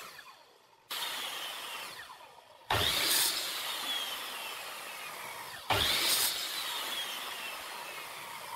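Electric sliding compound miter saw run three times, cutting thin hardwood strips. Each run starts suddenly with the blade biting through the wood, then the blade winds down with a falling whine. The second and third cuts are louder than the first.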